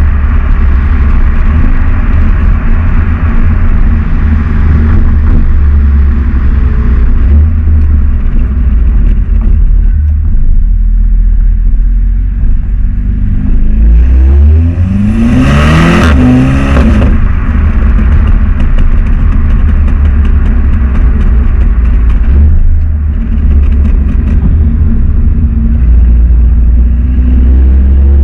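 Volkswagen Golf 7 R's turbocharged 2.0-litre four-cylinder engine and stock exhaust running under way with a deep steady drone; about halfway through, the revs climb in a rising sweep and peak in a brief loud rushing burst before settling back.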